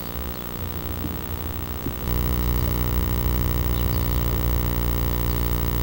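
Steady electrical buzz with hiss, the hum of a poorly grounded audio line rather than anything at the scene. It gets louder about two seconds in.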